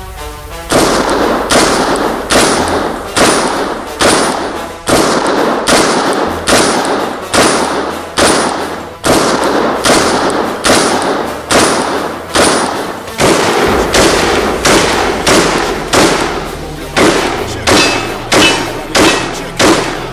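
A pistol fired over and over at a steady pace, about one loud shot every three-quarters of a second, roughly two dozen shots in all, each trailing off in a long echo.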